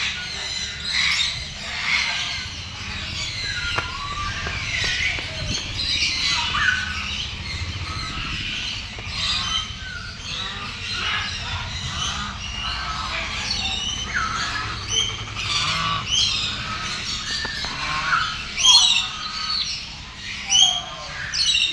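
Many birds calling at once: a dense, overlapping mix of squawks and chirps throughout, with a few louder squawks near the end.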